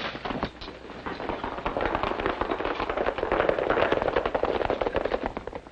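Hoofbeats of a troop of horses galloping off together, a dense patter of clatters that swells and then fades near the end.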